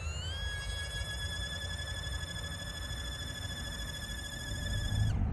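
Small toy quadcopter drone's motors whining, rising in pitch as they spin up for takeoff, then holding a steady high whine that cuts off suddenly near the end. A low rumble of wind on the microphone runs underneath.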